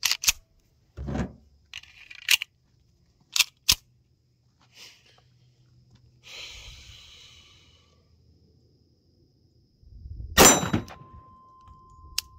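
Metal clicks and clacks of a Rock Island Armory TAC Ultra 10mm 1911 pistol being handled, its slide worked, over the first few seconds. About ten seconds in comes a single loud 10mm pistol shot, followed by a steel gong target ringing with a steady tone.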